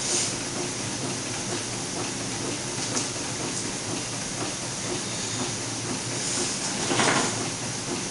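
Homemade two-cylinder Stirling engine running steadily, over the steady hiss of the two gas-canister burners heating its cylinders, with a brief louder rush near the end.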